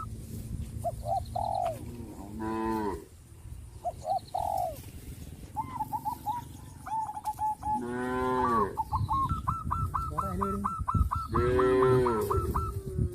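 Cattle mooing three times, long low calls, the later two louder. Between the moos, birds chirp in quick repeated trains.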